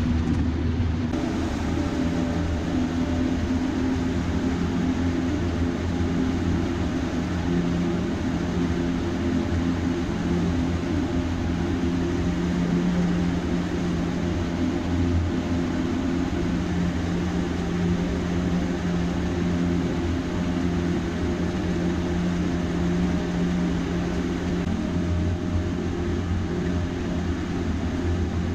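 A houseboat's motor running steadily under way, a continuous low drone with a few steady hum tones.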